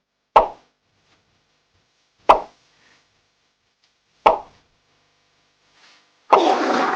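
Three identical short plop sound effects about two seconds apart, each dying away quickly, then a louder noisy burst about six seconds in.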